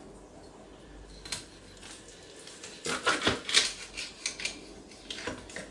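Kitchen knife cutting through the head end of a skinned sole on a plastic cutting board: a run of short cracks and clicks as the blade works through the bone, the densest cluster about three seconds in.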